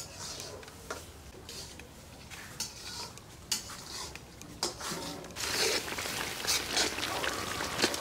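Spice paste being stirred and fried in oil in a cooking pan: scraping and clinks of the stirring utensil against the pan, with the frying sizzle growing louder about five seconds in.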